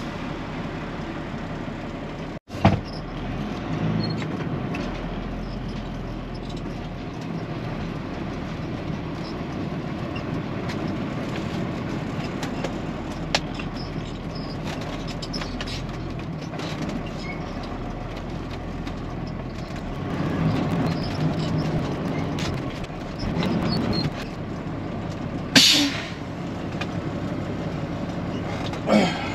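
Peterbilt 379 dump truck's diesel engine running steadily at low revs, with a sharp knock a few seconds in and a short burst of air-brake hiss near the end.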